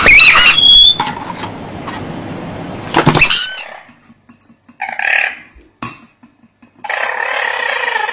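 A parrot squawking and whistling: sharp gliding calls at the start and again about three seconds in, a short call near the middle, then a longer harsh screech near the end.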